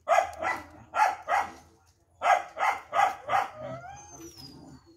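Dogs barking: two runs of sharp barks, the first a couple of pairs in the opening second and a half, the second four in quick succession a little past two seconds in. Softer rising yelps follow the barking.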